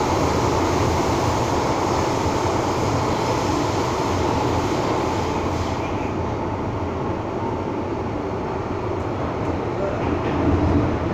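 MTR M-Train electric multiple unit running through a tunnel, heard from inside the passenger car: a steady rumble of wheels on rail and running gear. The high hiss fades about halfway through.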